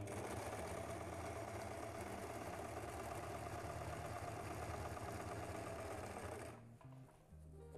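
Singer Serenade electric sewing machine running steadily, its needle stitching through a thick stuffed cushion edge, then stopping suddenly about six and a half seconds in.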